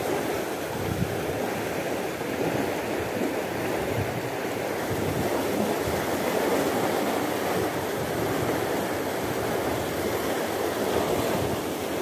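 Steady rush of fast-flowing water churning along a concrete canal wall.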